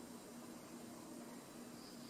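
Faint night-time nature ambience: a steady hiss with a low hum pulsing about twice a second, and a brief high insect chirp near the end.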